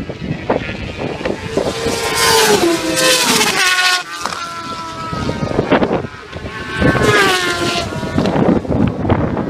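Racing motorcycles passing at speed one after another, each engine note falling in pitch as it goes by.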